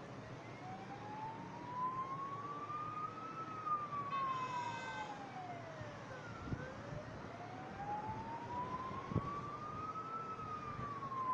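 A siren wailing, its pitch rising slowly and falling again twice. A short horn-like beep comes in about four and a half seconds in.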